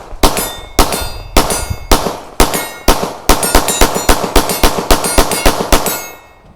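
A string of about twenty gunshots, at first about two a second and then quicker, about four a second, from about halfway in, stopping near the end. Each shot carries a metallic ring.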